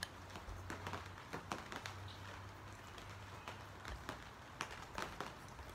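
A metal fork stirring a dry flour, salt and pepper mix in a bowl, giving faint, irregular clicks and taps as it scrapes and knocks against the bowl.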